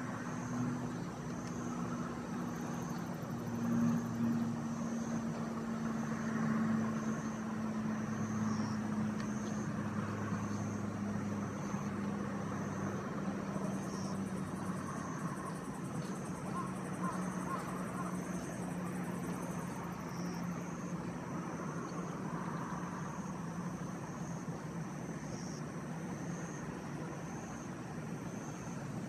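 Outdoor ambience: a distant engine hum that slowly falls in pitch over the first half. Under it is a steady haze of noise, and a thin, high insect trill pulses about once a second.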